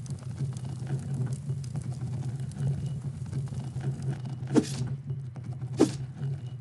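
A steady low hum with two sharp knocks a little over a second apart, past the middle.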